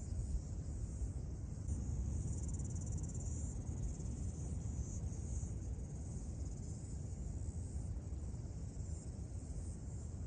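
Outdoor ambience of insects chirring steadily at a high pitch over a low steady rumble.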